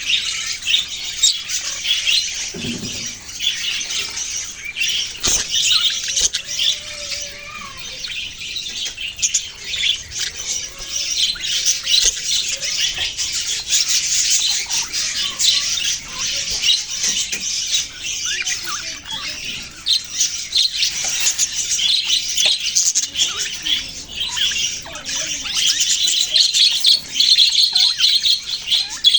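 A flock of budgerigars chirping and chattering nonstop, many quick high chirps and squawks overlapping.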